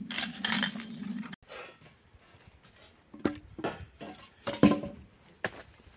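Steel narrow-gauge rails being worked by hand: a steel pry bar scraping and grinding against the rusty track, then a few sharp metallic knocks and clanks as lengths of rail are shifted on the sleepers.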